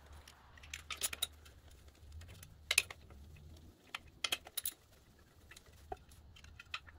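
Scattered sharp metal clicks and taps as a socket extension is worked off the last valve-cover bolts of a Briggs & Stratton OHV lawn-tractor engine and the stamped-steel valve cover is lifted off the head. The sharpest clicks come near 3 s and around 4.5 s, over a faint low hum.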